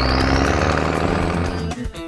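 Cartoon vehicle engine sound effect with a rising whine, over background music; the engine sound fades out about a second and a half in, leaving the music.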